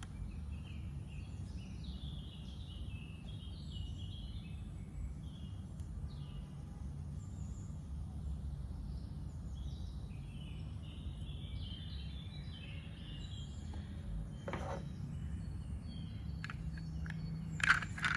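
Steady low background rumble with small birds chirping on and off throughout. A single knock about fourteen and a half seconds in, and a few handling clicks near the end.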